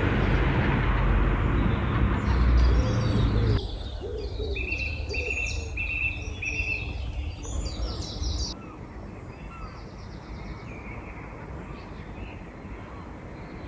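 Wild birds singing outdoors: one bird repeats a clear note four times in a row among higher chirps from others. Over a steady rushing noise that is heavy for the first few seconds and drops away sharply, then fades further later on.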